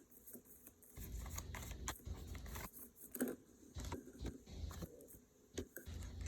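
Tarot or oracle cards being handled and shuffled: papery rustling with scattered sharp clicks and low thumps, coming and going.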